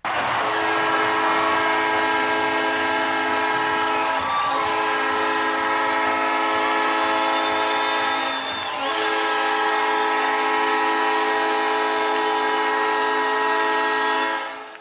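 Alberni Valley Bulldogs' hockey goal horn, a multi-tone air horn sounding a steady chord in three long blasts, with short breaks about four and eight and a half seconds in, fading out near the end.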